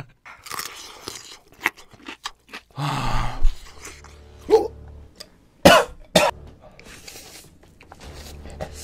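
A man coughing twice in quick succession, partway through, while eating very spicy noodles, amid short mouth sounds of slurping and chewing.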